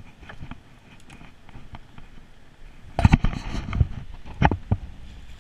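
Sharp knocks and bumps close to the microphone: a quick cluster about three seconds in, then two single knocks about a second and a half later, from fishing gear and a landing net being handled against the railing.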